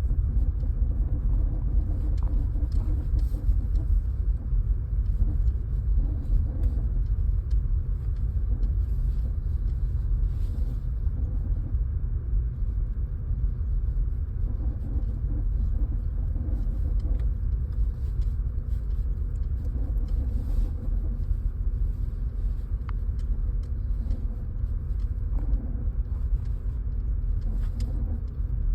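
Audi A4 2.0 TFSI EA888 Gen 3 turbocharged four-cylinder engine running with a steady low rumble and faint scattered ticks. The owner hears an unexplained noise from the engine and does not know its cause.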